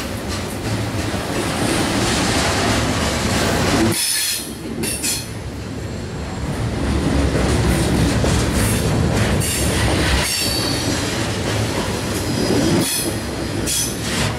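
Railroad cars rolling past on steel rails, a steady rumble with rail clatter and high-pitched wheel squeal that comes and goes.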